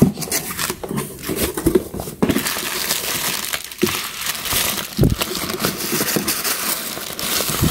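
Plastic air-cushion packing wrap crinkling and rustling as it is lifted and pulled out of a cardboard box, after a few knocks and scrapes of the box's cardboard flaps being opened in the first couple of seconds.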